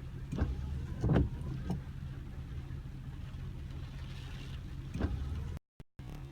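Car engine idling, a steady low hum heard from inside the vehicle, with a few sharp knocks, the strongest about a second in. It cuts out briefly near the end.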